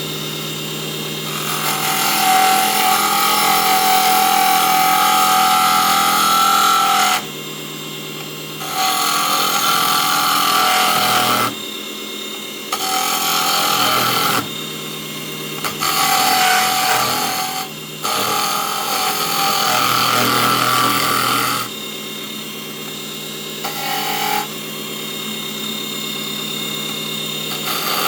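Small benchtop wood lathe running with a steady motor hum while a turning tool cuts into the spinning wood. The loud scraping of the cut starts and stops in spells of a few seconds, about six times, as the tool is pressed in and lifted off.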